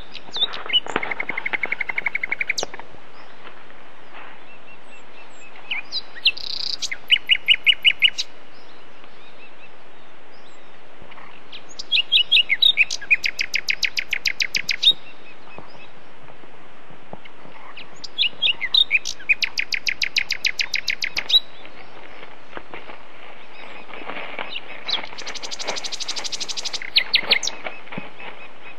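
A songbird singing five phrases of fast repeated notes, about one every six seconds, over a steady hiss.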